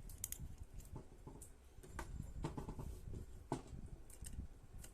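Small screwdriver tightening tiny screws in a plastic CCTV bullet-camera housing: scattered light clicks and scrapes of metal on plastic at irregular intervals.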